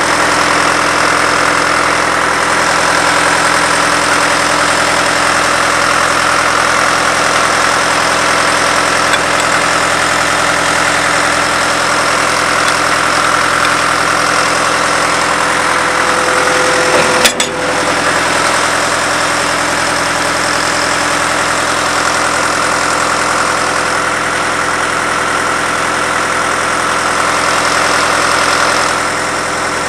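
Engine of a truck-mounted cable tool drill rig idling steadily, with a single sharp metallic clank a little past halfway.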